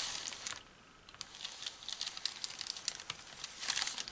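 Greaseproof paper rustling under a hand iron pressing Angelina fibres. It goes nearly quiet, then comes a run of scattered light ticks, and a louder crinkle of the paper near the end.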